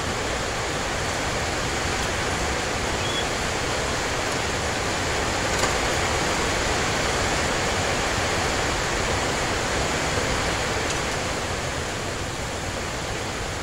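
Steady rushing noise with no pitch or rhythm, and a couple of faint clicks partway through.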